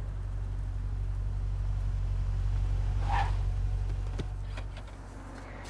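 Low car-engine rumble swelling to a peak about three seconds in and then dying away, with a brief higher sound at the peak and a few light clicks after.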